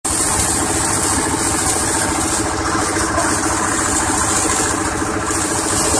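Rice-husk grinding machine with its 6.5 hp petrol engine running steadily at a constant speed.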